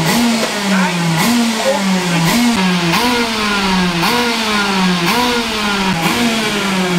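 Kart engine revving in even pulses about once a second, each a quick rise in pitch followed by a slow fall.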